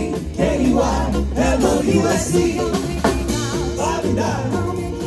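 Small live jazz band playing, with a woman singing lead over a steady bass line.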